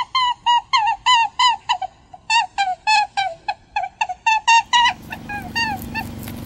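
A bird chirping in a fast, even run of short calls, about three to four a second. Near the end the chirps grow fainter over a steady background hiss.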